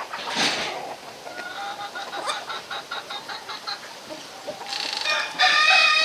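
A flock of chickens clucking, with a run of short, quick clucks in the middle. Near the end a louder, sustained sound with a wavering pitch comes in.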